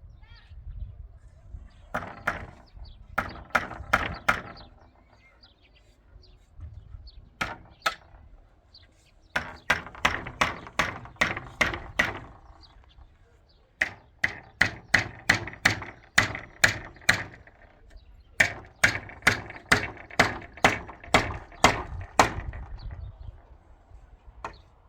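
Repeated hard striking blows, each with a short ring, in runs of about three blows a second separated by pauses.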